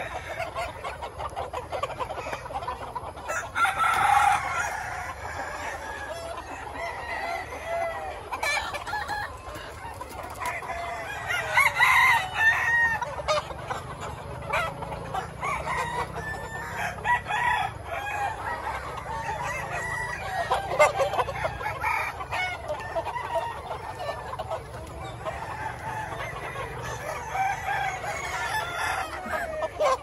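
A large flock of chickens clucking and calling continuously, with roosters crowing over it several times; the loudest crows come at about 4, 12 and 21 seconds in.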